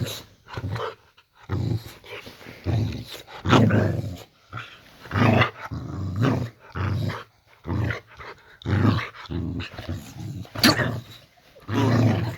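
Boxer dog growling in a string of short loud bouts, roughly one a second, with a sharper yap near the end.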